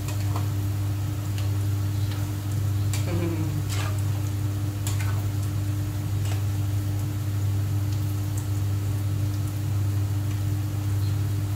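Stirring and frying on a stove: a spoon clinks now and then against a pot of macaroni, over the hiss of onions frying in a wok and a steady low hum.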